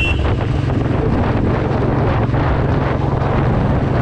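Motorcycle engine running steadily while riding at speed, with heavy wind rushing over the microphone.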